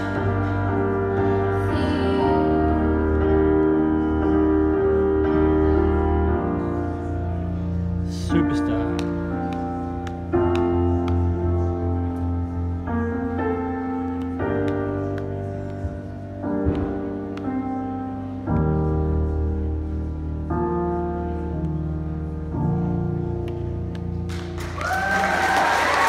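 Piano-led backing music playing slow, held chords that change every second or two. Near the end, applause and a cheer break out.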